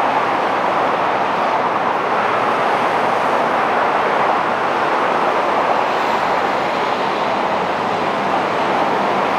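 Steady, even rushing noise with a faint low hum underneath and no distinct events.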